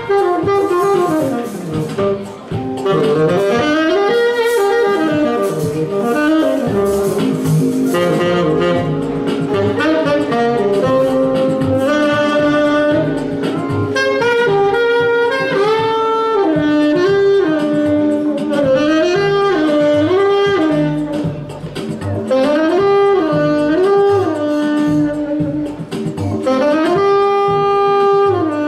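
Tenor saxophone playing a jazz melody, with notes that slide into one another and a short rising-and-falling phrase repeated several times in the second half. It plays over a lounge-style backing track from a loudspeaker.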